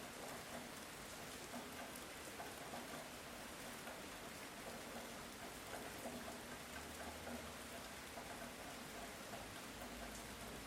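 Light rain falling steadily, a soft even hiss with scattered drops pattering on surfaces.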